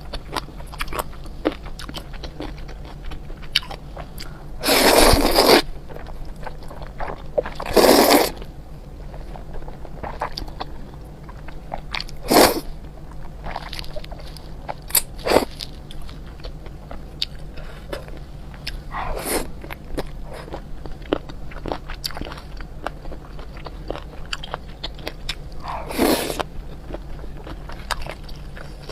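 A person eating close to the microphone: chewing with many small wet mouth clicks, broken by about five louder bursts, each half a second to a second long.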